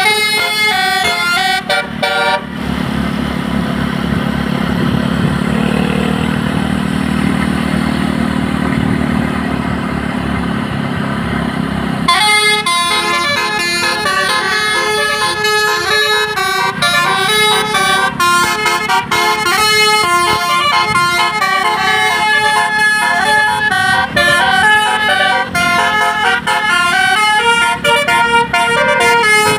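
Tour bus's telolet basuri musical air horn tooting a quick melody of stepped notes. It stops about two seconds in, leaving about ten seconds of bus engine and road rumble, then the melody starts again and runs on.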